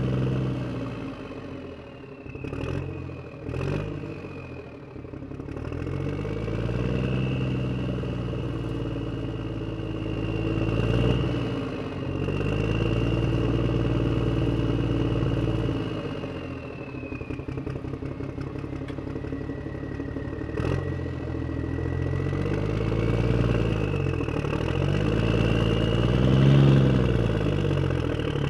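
Motor vehicle engine running as it drives, its pitch rising and falling several times as it speeds up and eases off. There are a few sharp knocks, two near the start and one about two-thirds through.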